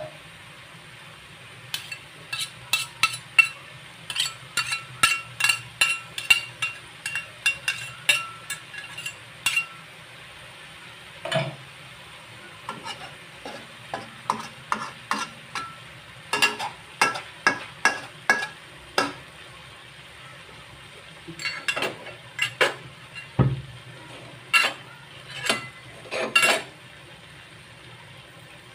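Spatula stirring a bean-sprout and mushroom stir-fry in a metal wok: quick runs of scraping, tapping strokes on the pan, each with a brief metallic ring, broken by short pauses. A faint frying sizzle sits underneath.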